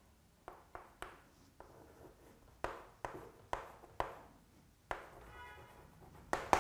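Chalk on a blackboard as numbers are written: a run of sharp taps and short scratchy strokes, the loudest near the end.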